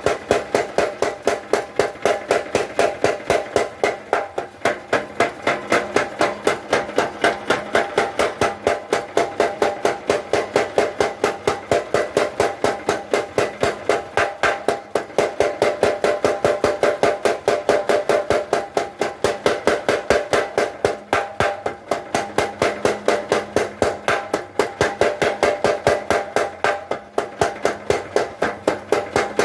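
Mechanical blacksmith power hammer pounding a piece of steel in a fast, even rhythm of about four blows a second, each blow with a short metallic ring.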